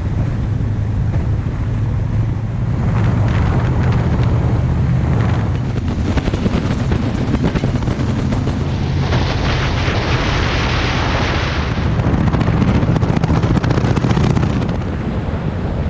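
Shelby Cobra roadster's V8 engine running with a deep, steady exhaust note through its side-exit pipes as the car drives along, with road and wind noise over it, the rush growing louder for a few seconds around the middle.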